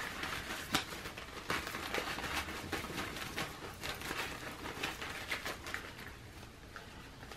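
Hand rummaging in a cloth drawstring pouch of paper prompt cards: fabric and card rustling with light scattered clicks, fading toward the end.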